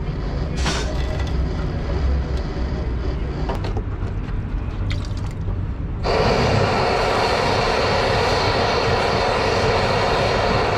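A few light metal clicks and scrapes from the soldering iron on the radiator's filler neck over a low rumble. About six seconds in, a forge blower starts suddenly with a loud, steady rush of air, fanning the coal fire that reheats the soldering iron.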